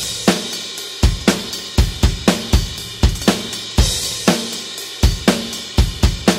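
Drum kit playing a steady rock beat at 120 bpm: bass drum and snare in alternation under hi-hat and cymbal, with no other instruments.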